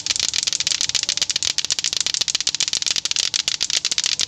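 Several lato-lato clackers (pairs of hard plastic balls on strings) swung at once, their balls knocking together in a dense, uneven stream of sharp overlapping clacks.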